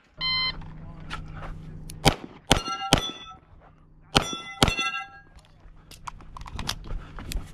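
Pistol shots from a 9mm CZ Shadow 2 at steel targets: a clear metallic ring of a struck plate right at the start, then a string of three shots about two seconds in and two more about four seconds in, each followed by the ring of steel being hit.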